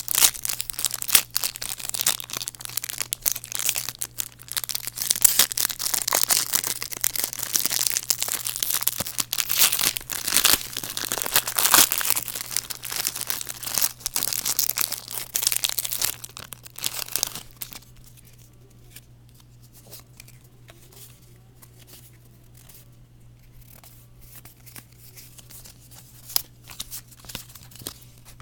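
Yu-Gi-Oh! booster pack wrapper crinkling and tearing as it is opened, dense for roughly the first seventeen seconds, then giving way to faint, sparse rustles and clicks as the cards are handled. A steady low hum runs underneath.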